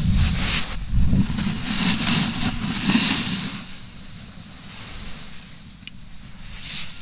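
A snowboard sliding and carving across packed snow, its scraping hiss swelling with each turn, mixed with wind buffeting the microphone. It is louder for the first half and eases off about halfway through.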